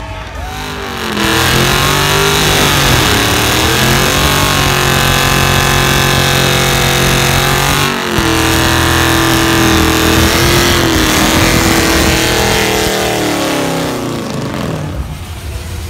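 Loud burnouts: a car engine revs up and is held at high revs while the rear tyres spin. About eight seconds in there is a sudden break, then a Chevrolet Camaro's engine is held high in its own burnout. Its revs fall away near the end.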